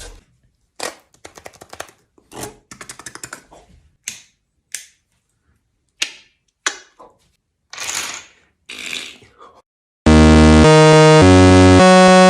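A string of sharp clicks, quick runs of ticks, pops and two short hisses, performed as sound effects. Electronic music starts abruptly about ten seconds in.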